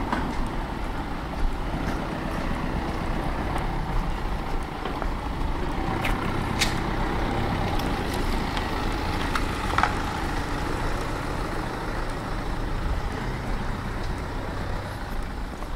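A heavy engine running steadily, with a low hum that fades near the end and a couple of sharp clicks.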